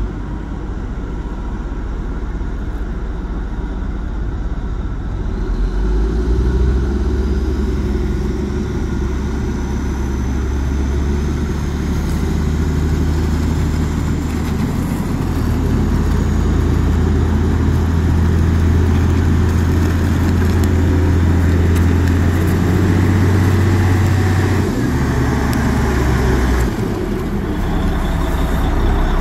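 Caterpillar 980G wheel loader's diesel engine running as the loader drives. Its engine note steps up about six seconds in, holds steady, and drops back twice near the end.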